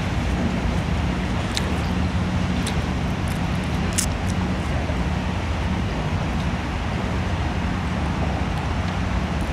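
Steady low rumble of background road traffic with a low hum, broken by a few short faint clicks.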